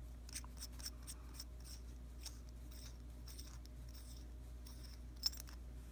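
Faint ticking and scraping of metal threads as the chimney sleeve of a rebuildable vape tank is unscrewed by hand from its build deck, with a sharper click about five seconds in.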